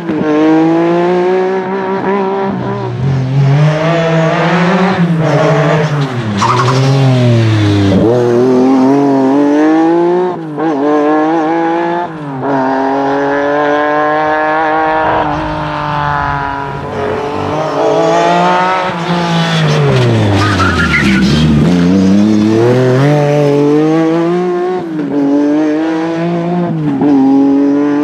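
Lancia Stratos rally car's V6 engine driven hard, revving up and dropping back again and again through gear changes and lifts, with deep drops in revs followed by climbs. Brief tyre squeal as the car slides through corners.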